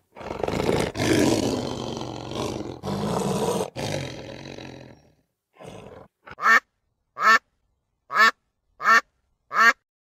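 A lion roars loudly for about five seconds. After a short pause a mallard duck quacks five times, evenly spaced, a little under one quack a second.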